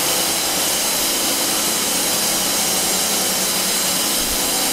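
Gas-processing machinery at a carbon dioxide plant, including the gas compressor, running with a steady loud hiss and faint steady whining tones.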